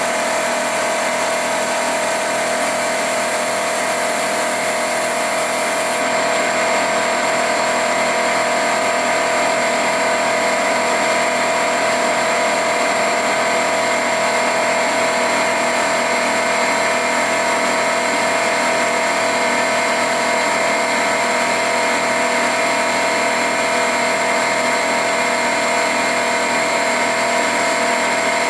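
Milling machine running steadily as it cuts a steel Volkswagen five-cylinder main bearing cap: several held tones over a broad hiss, a little louder from about six seconds in.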